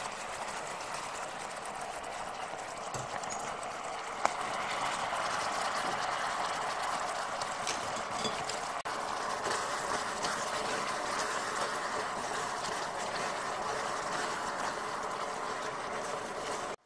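Caramel sauce boiling hard in a small saucepan, a steady bubbling, crackling hiss as whipping cream is added to the hot caramelized sugar. A single sharp click comes about four seconds in.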